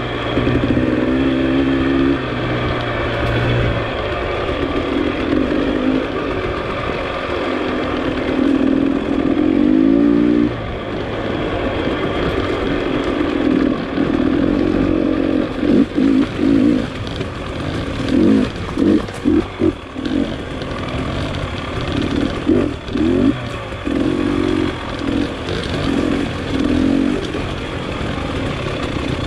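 Dirt bike engine running under changing throttle, its revs rising and falling. In the second half it gives a run of short, quick throttle blips.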